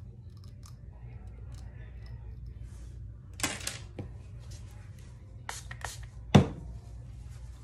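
Handling noises while hair is being styled: a few short rustling strokes and one sharp click about six seconds in, the loudest sound, over a low steady hum.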